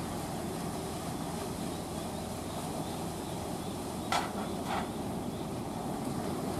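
Steady rush of sea waves and wind, with two short sharp clicks about half a second apart just past the middle.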